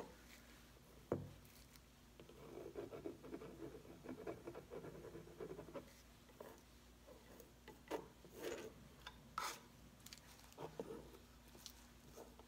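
Faint paintbrush strokes scrubbing acrylic paint over a canvas, a steady run of rubbing for a few seconds, then short separate strokes. A light knock sounds about a second in.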